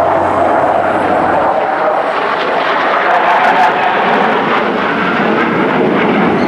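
Steady jet roar from four F-16 Fighting Falcons of the US Air Force Thunderbirds flying in close diamond formation.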